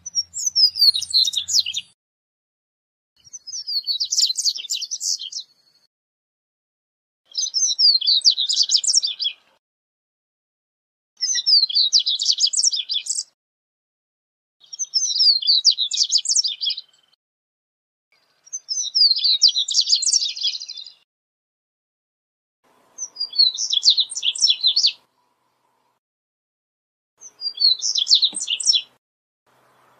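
Male double-collared seedeater (corbatita) singing: eight quick, high song phrases of about two seconds each, repeated every three to four seconds.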